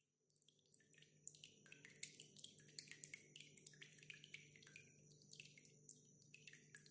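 Faint water droplets dripping and splashing, many small irregular plinks close together, over a steady low hum.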